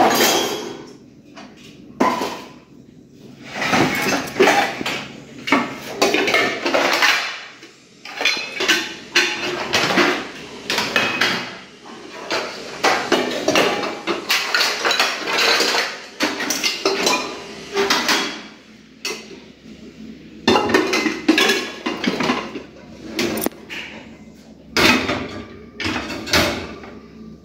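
Metal cookware, pressure cookers and steel utensils, clanking and clattering over and over as they are handled, stacked and set down.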